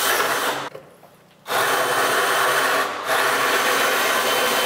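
Power drill running the pilot bit of a Hole Dozer hole saw into a cabinet's back panel. It runs briefly, stops for under a second, then drills steadily again, starting the pilot hole.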